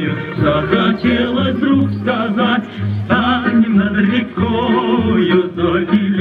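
Recorded song with a singing voice over a bass line, played for a dance routine.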